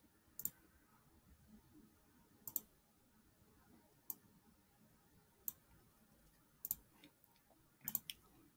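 Sharp clicks of a computer pointing device at irregular intervals: about half a dozen, with quick double clicks about two and a half seconds in and again near seven seconds, and a short cluster near the end. Background near silence.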